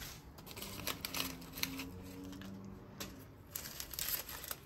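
Paper predatory-mite sachets being unhooked and handled among a houseplant's stems and leaves: light crinkling and rustling with scattered small clicks and taps.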